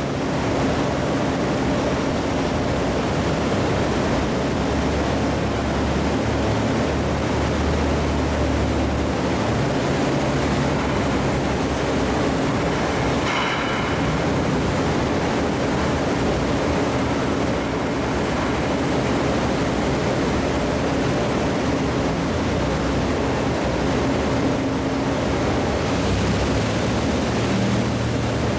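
Steady heavy-machinery noise on a machine-shop floor: a continuous low hum and drone, with a brief squeal about halfway through.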